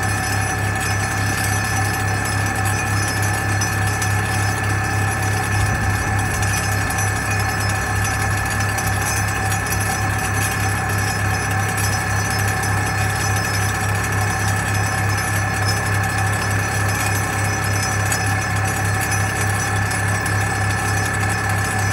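ThyssenKrupp MS-10 vibratory pile hammer running continuously as it drives a pipe into the ground: a loud, even, pulsing drone with a steady high whine over it.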